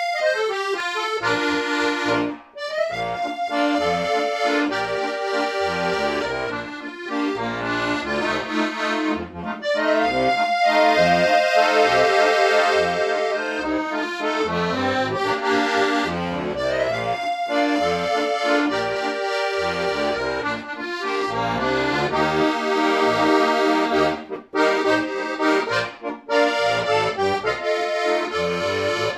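Solo piano accordion playing a melody over sustained chords, with bass notes pulsing underneath and a few short breaks between phrases.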